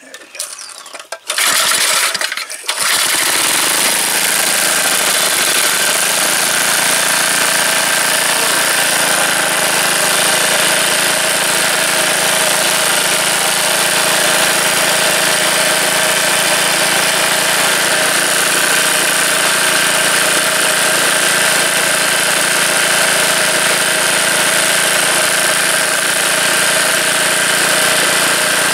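Small single-cylinder engine, air cleaner off and choked, being started: a few seconds of starting effort, then it catches about three seconds in and runs steadily.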